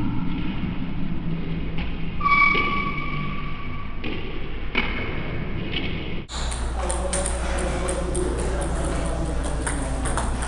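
Table tennis balls clicking off rubber paddles and bouncing on the tables, irregular sharp taps in a large echoing hall, with people's voices in the background. About six seconds in, a steady low hum comes in and the taps grow more frequent.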